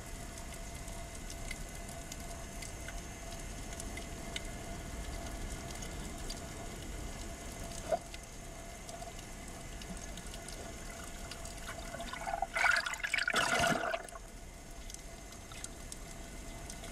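Underwater ambience recorded by a camera in the sea: a steady hiss with a faint steady tone and scattered faint clicks. About twelve seconds in, there is a louder burst of churning water noise lasting about a second and a half.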